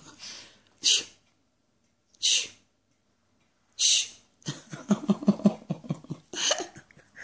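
A cornered pet hissing in short, sharp bursts, four times about a second and a half apart, at a dog that is hunting for it.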